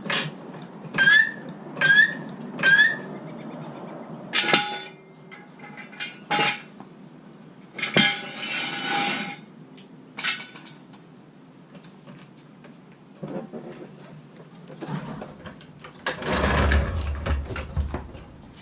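Three short rising chirps, then scattered clicks and clunks. About sixteen seconds in, a low rumble comes in and keeps going: the fuel-injected 5.0 302 V8 in a 1968 Ford Mustang starting up.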